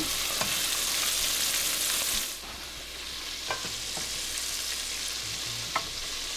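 Shrimp deep-frying in a pot of hot oil: a steady bubbling sizzle that drops in level about two and a half seconds in. A few light clicks of metal utensils sound over it.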